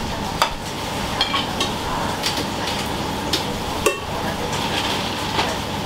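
Busy ramen-shop kitchen: scattered clinks and knocks of dishes, pots and metal utensils, some ringing briefly, over a steady background hiss.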